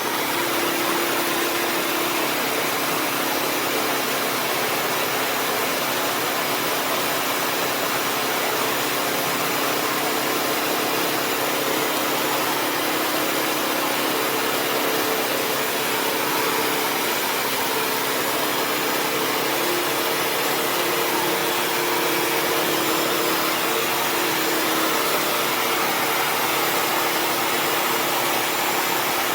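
Bissell CrossWave HydroSteam Pet wet-dry vacuum running: a steady motor hum and rushing airflow with a whining tone that shifts slightly in pitch a few times.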